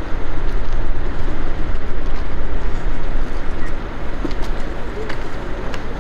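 Bell AH-1S Cobra helicopter's turboshaft engine running with its main rotor turning slowly, a loud steady rush with a deep rumble.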